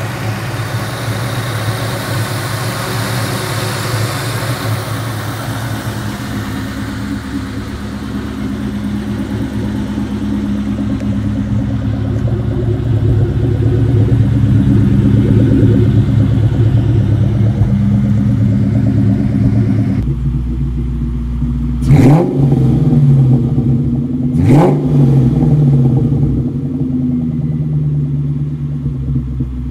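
A 2003 Ford Mustang SVT Cobra's supercharged 4.6-litre V8 idling steadily, then revved twice in quick blips in the last third.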